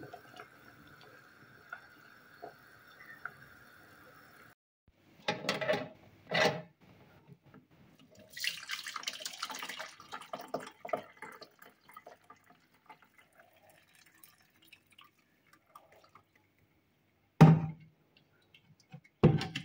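Hot liquid poured from a pot through a metal mesh sieve into a plastic measuring jug, splashing for a few seconds and then trickling. Clunks of the pot being handled come before the pour, and there are two loud knocks near the end. For the first few seconds there is only a steady hum.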